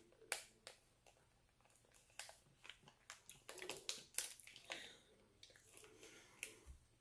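Faint, scattered crinkles and clicks of a small plastic candy wrapper being handled and turned over in the fingers.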